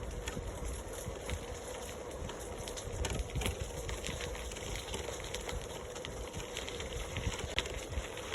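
Steady low rumbling noise with a faint steady hum and scattered faint clicks.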